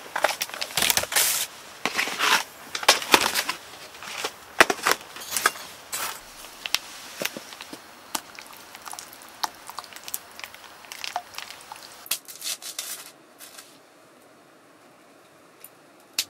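Crinkling and crackling of a plastic food packet being handled and squeezed out over a pot, a run of sharp crackles that dies away about three seconds before the end.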